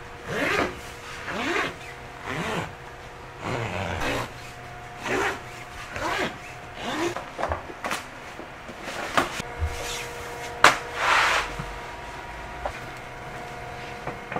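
Tent fabric being rubbed and slid by hand across a worktable: a series of rustling swishes, roughly one a second, with a sharp click about ten and a half seconds in. A faint steady hum runs underneath.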